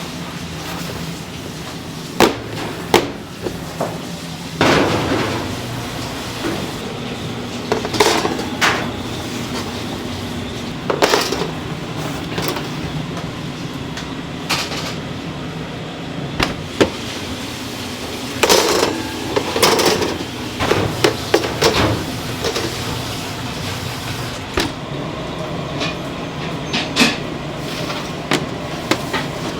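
Bakery kitchen work sounds: irregular knocks and short clatters of trays and utensils over a steady low machine hum.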